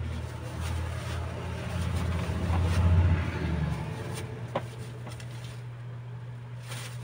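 Plastic wrapping and a cardboard box rustling as gifts are unpacked by hand. Under it a low rumble swells to its loudest about three seconds in and fades out soon after. A single sharp click comes about four and a half seconds in.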